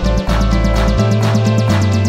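Upbeat electronic background music with a steady fast beat and a synthesizer bass line that changes notes about a second in.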